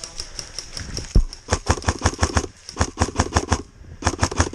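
Airsoft electric gun firing in three rapid full-auto bursts, each a quick run of sharp cracks, as covering fire.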